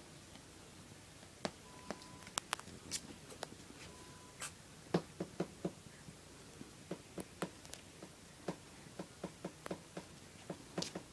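Four-week-old Pomeranian puppies scuffling and pawing in a pen walled with cardboard boxes: irregular light taps and clicks, sparse at first and coming faster from about five seconds in. Two brief faint tones sound near the start.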